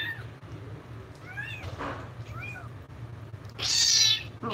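Very young tabby kitten meowing while being syringe-fed: a few short mews that rise and fall, then a louder, longer cry near the end.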